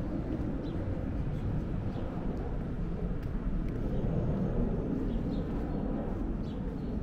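Outdoor street ambience: a steady low rumble of distant traffic, with a few faint, short high chirps of small birds.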